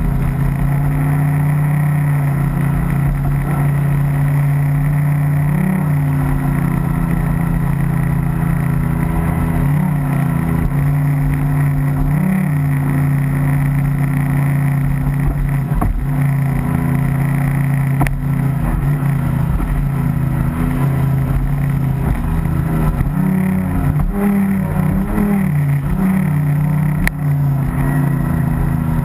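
A small motor running steadily at a near-constant pitch, with a few brief wobbles in pitch and a few short clicks.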